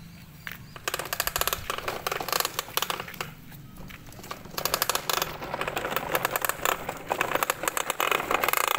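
Hard plastic wheels of a large toy dump truck rolling over gravel and packed dirt, a dense clattering rattle of many small clicks that eases for about a second in the middle and then picks up again.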